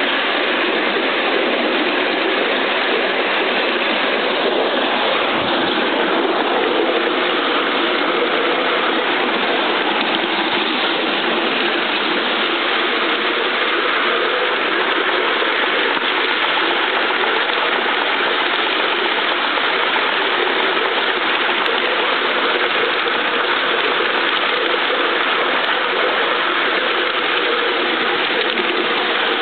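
A 5-inch gauge miniature train on the move behind a model King Arthur class steam locomotive: a loud, steady mechanical rattle and clatter of the running train and its wheels on the track, heard close up from a riding car.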